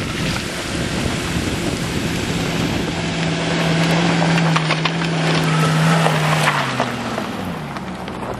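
Range Rover's engine running under load as the 4x4 climbs a steep rocky track, with stones clicking and crackling under the tyres. The engine note holds steady through the middle and drops away near the end as the vehicle passes close by.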